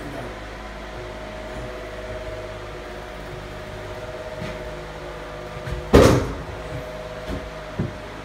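A steady hum with a few faint steady tones, broken about six seconds in by one loud knock, then two lighter knocks near the end.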